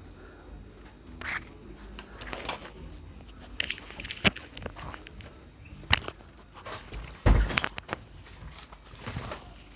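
Scattered knocks and clicks of things being handled and moved, with a heavier low thump about seven seconds in.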